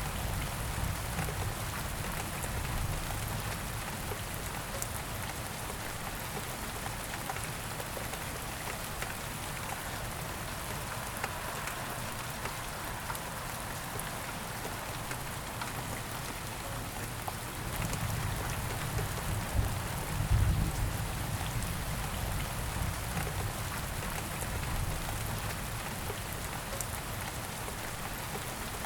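Steady rain falling on a surface, a constant hiss with fine drop patter, and a low rumble underneath that swells about two-thirds of the way through.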